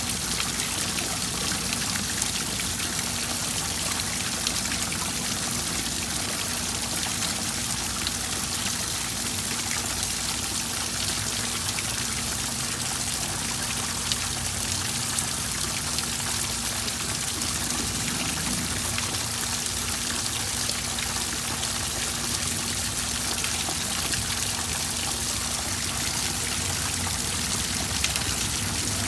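Small rock waterfall splashing steadily into a koi pond, with rain falling on the pond's surface.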